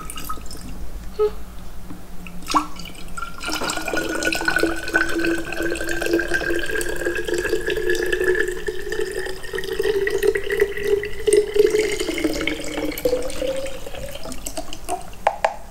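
Water poured from a plastic measuring jug into a tall clear bottle, starting after a few drips about three seconds in; the pouring tone rises steadily in pitch as the bottle fills.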